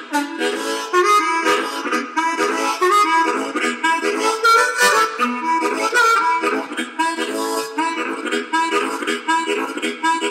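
Background music: a harmonica playing a quick run of short notes and chords in a blues-style train song.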